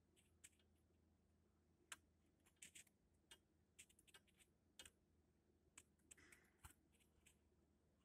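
Near silence with faint, irregular sharp clicks and ticks scattered through it.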